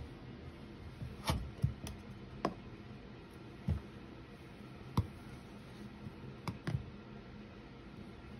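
Small plastic stacking cups clicking and knocking as they are handled and tapped against a plastic storage bin lid, about eight light, scattered taps.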